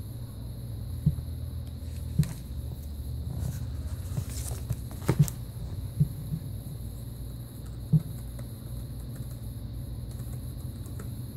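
Scattered soft knocks and clicks of a laptop and its charger being handled and set down, over a low steady hum, with a sharp double click about five seconds in. Light keyboard tapping near the end.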